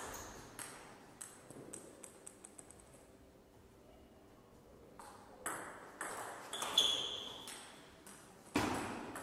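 Table tennis ball clicking off rackets and table in a rally, echoing in a hall. About two seconds in a quick run of fading ticks as a loose ball bounces to rest, then a pause, and from about five seconds in a new rally of clicks, with a brief high squeak near seven seconds.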